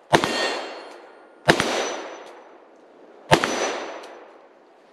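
Three rifle shots from an AR-15 with a .223 Wylde barrel, firing 5.56 rounds: one right at the start, one about a second and a half later and one a little over three seconds in, each echoing away over a second or so. A faint metallic ring follows each shot as the bullets hit the steel target.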